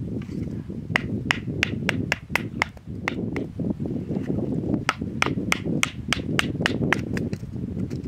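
Wooden baton knocking on the spine of a knife to split a small log into pencil-size sticks: quick, sharp strikes, about three a second, in two runs with a short pause in the middle, over a steady low rumble of wind.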